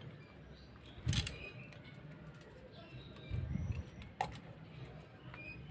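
Two sharp clicks of metal tools or engine parts being handled, about a second in and again past four seconds, with a short low thud between them. Faint bird calls sound in the background.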